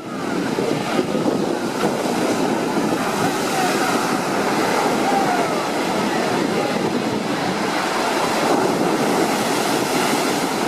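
Heavy ocean surf, a loud, steady rush of breaking waves, with wind buffeting the microphone.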